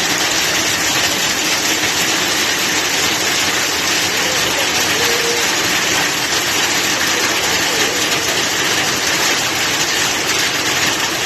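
Floodwater rushing in a loud, steady flow that does not let up.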